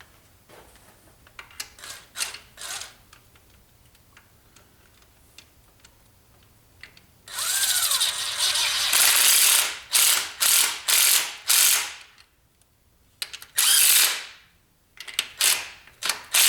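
Ratchet wrench clicking as bolts are run down during timing chain work: a few light clicks at first, then, from about halfway through, a long run of loud ratcheting followed by a series of short back-and-forth strokes with brief pauses.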